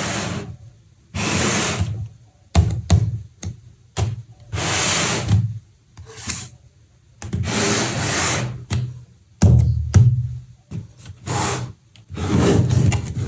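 Graphics-card packaging being handled: four long rubbing swooshes of cardboard sliding against cardboard, with dull knocks between them.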